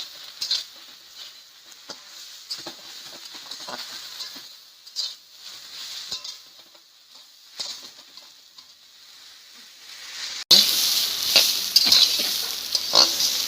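Chopped banana stem frying in oil in a pan, sizzling, with a spatula scraping and knocking against the pan as it is stirred. About ten seconds in the sizzle abruptly becomes louder.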